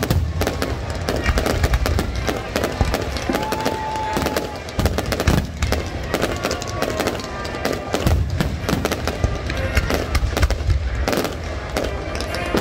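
Fireworks display: a dense run of bangs, crackles and deep booms from aerial shells and ground-launched comets going off in quick succession.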